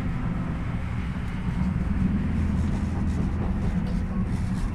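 Steady low rumble of the Afrosiyob high-speed train running, heard inside a passenger car.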